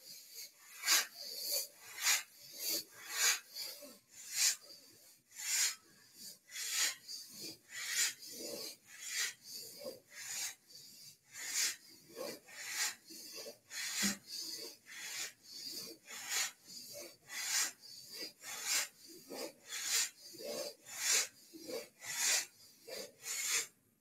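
Strong, rhythmic breathing through the nose, a sharp inhale and exhale alternating about twice a second, paced to the forward-and-back rocking of a seated Kundalini yoga spinal flex.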